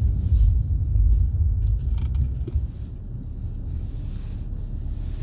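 Low, steady rumble of a car's engine and tyres heard from inside the cabin while driving, louder for the first couple of seconds and then easing off a little.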